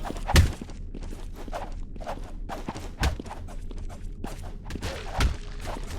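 Lift running with a steady low hum and an irregular string of clicks and knocks, with three heavier thumps about every two and a half seconds: an unusual noise from the lift.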